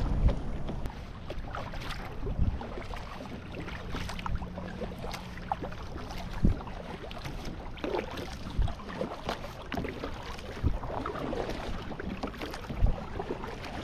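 Sit-on-top kayak being paddled: water splashing and lapping against the plastic hull, with irregular paddle splashes and a few sharper knocks.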